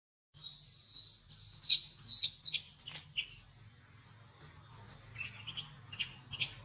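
Infant macaque giving high-pitched distress squeals in quick succession: a dense burst in the first three seconds, then a run of shorter squeaks near the end.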